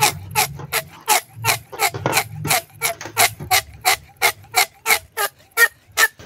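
Inflated latex balloon squeaking under rubbing, squeezing fingers: a quick, even run of short squeaks, about three a second.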